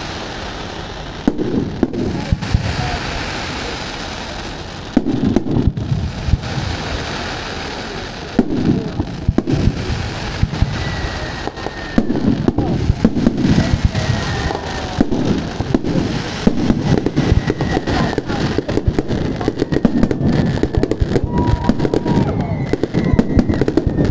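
Fireworks display: a continuous run of bangs and crackling pops that grows busier about halfway through, with faint whistles gliding in pitch in the second half.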